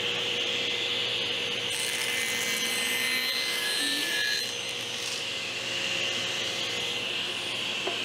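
Steady hiss of running workshop machinery, with a thin wooden panel sliding and rubbing across the saw table's metal top for a couple of seconds near the middle.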